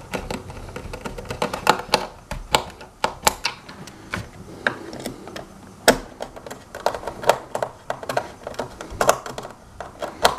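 Hand screwdriver tightening screws into a hoverboard's plastic shell: a string of irregular sharp clicks and light knocks.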